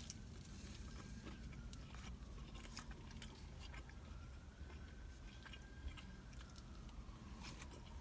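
A person chewing food close to the microphone: faint, scattered small wet mouth clicks and bites, over a low steady hum.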